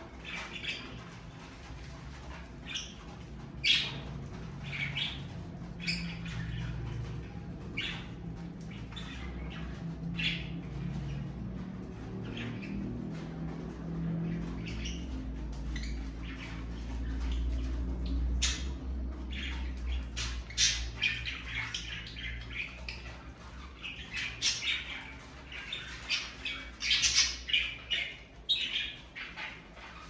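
A small flock of budgerigars calling: many short, separate calls, coming thicker and louder near the end.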